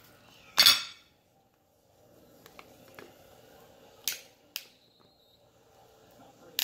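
Kitchen scissors crunch through a king crab leg's shell about half a second in, followed by a few sharp clicks and cracks of shell, one of them with a short ringing clink.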